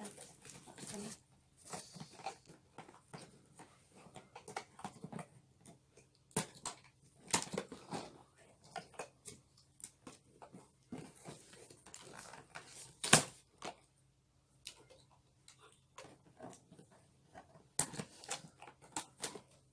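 Scattered clicks, knocks and rustles of hands working in a cardboard box, cutting plastic ties and freeing a toy RC buggy from its packaging, with one sharp click about 13 seconds in.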